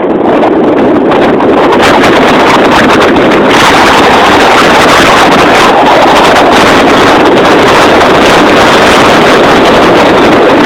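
Storm wind blasting across a phone's microphone: loud, steady wind noise with no let-up.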